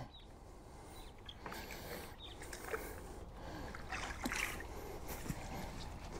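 Light splashing of water from a carp being played close in on a pole, with a few small clicks and knocks.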